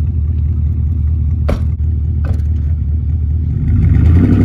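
Pickup truck engine running steadily, with a sharp knock about a second and a half in and a lighter one shortly after, as the doors are slammed shut. The engine picks up slightly near the end.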